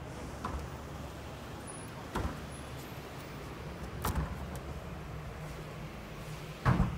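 Steady low hum of downtown traffic, with knocks and thumps about every two seconds as a glass revolving door is pushed round by its metal bar; the loudest thump comes near the end.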